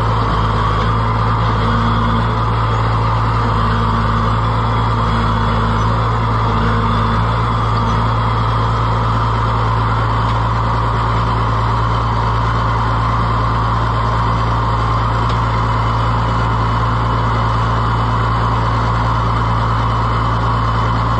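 Allis-Chalmers 200 tractor's six-cylinder diesel engine running steadily with no exhaust pipe fitted, driving the hydraulic pump while the new hoses are cycled under pressure.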